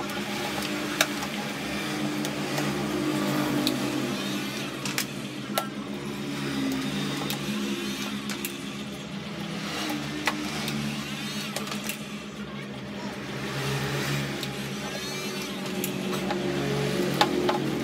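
Electric heat gun running with a steady motor hum that swells and fades a little, over scattered sharp crackles of vinyl sticker film being stretched and handled.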